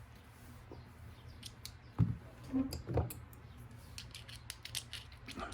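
Plastic RC drive shafts being handled and compared by hand: two dull knocks about two and three seconds in, then a run of light clicks and ticks.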